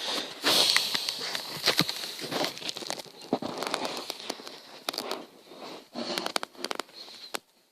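Handling noise from a plastic action figure being moved about and set down: irregular light clicks and rustles, thinning out near the end.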